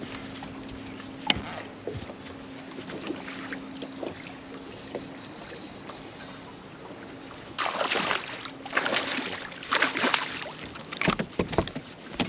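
Bow-mounted electric trolling motor humming steadily, with light clicks of fishing tackle. The hum stops for a few seconds near the middle. Then, from a little past halfway, several loud rushing bursts.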